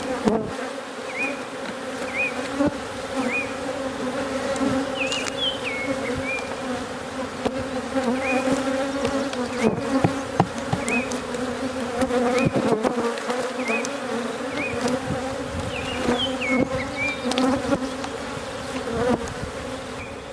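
Honey bees buzzing in a steady hum around an opened hive. A short high chirp repeats about once a second over it, with occasional knocks.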